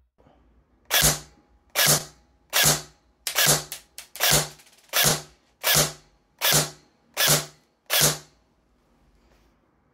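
Double Eagle M924 (DMP9) airsoft electric gun firing single shots through a chronograph. There are about ten sharp snaps, roughly three-quarters of a second apart, each with a short low thump, steady at around 338 to 340 fps with 0.2 g BBs.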